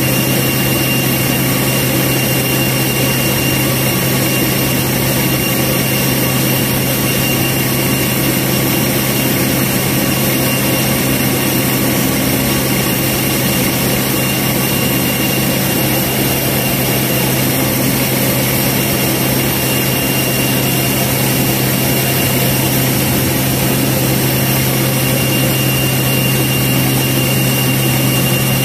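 Steady, unbroken engine drone with a constant thin high whine above it: machinery running while jet fuel is pumped through the refuelling truck into an Airbus A320.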